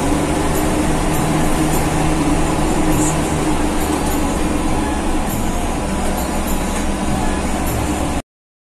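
Mitsubishi-engined bus under way, heard from inside the cabin: the diesel engine running steadily under a wash of road and tyre noise. It cuts off suddenly near the end.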